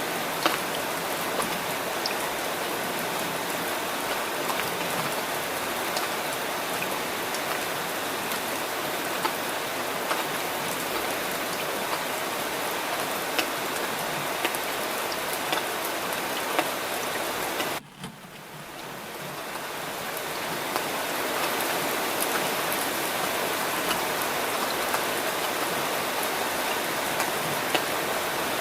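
Steady summer rain falling, a dense hiss with separate drops ticking through it. About eighteen seconds in the sound cuts out abruptly and fades back up over a few seconds, the join of a looped recording.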